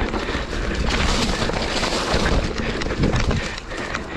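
Mountain bike rolling fast down a dirt trail: wind rushing over the camera microphone with low rumble, tyre noise on dirt and leaves, and frequent knocks and rattles from the bike over bumps.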